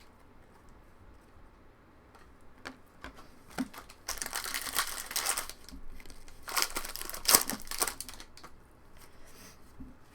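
Foil wrapper of a trading card pack crinkling and tearing as it is opened by hand, in two rustling bursts after a few light clicks of card handling.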